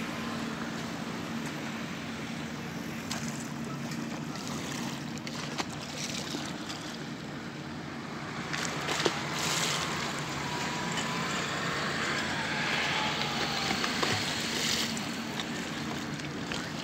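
Choppy lake water splashing and lapping against a stone promenade wall, with wind on the microphone and a steady low motor hum underneath.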